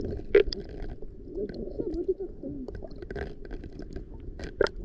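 Muffled underwater sound picked up through the camera's housing, with a pair of sharp clicks about half a second in and a louder pair near the end.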